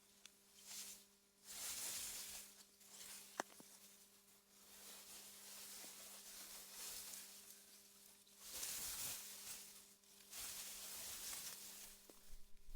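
Soft wind blowing through meadow grass, a faint hiss that swells and fades in gusts every second or two over a steady low hum, with a single click about three and a half seconds in.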